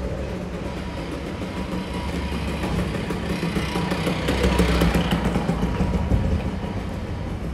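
Small motor scooter's engine running as it rides up and passes close by, growing louder to a peak a little past halfway, then fading as it goes away.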